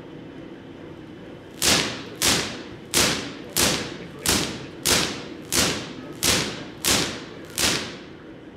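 Ten sharp, loud cracks of artificial lightning sparks from a giant Van de Graaff generator striking a raised rubber tire, coming about one every two-thirds of a second from about two seconds in, each with a short echoing tail.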